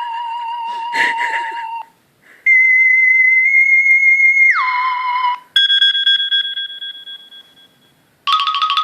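Phone ringtones playing one after another: a wavering, whistle-like held tone, then a steady high tone that drops in pitch, then a single chime that fades away, and near the end a fast trilling ring. There is a short noise about a second in.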